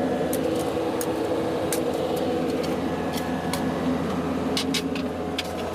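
New Holland backhoe loader's diesel engine running steadily, with scattered sharp clicks and ticks over it.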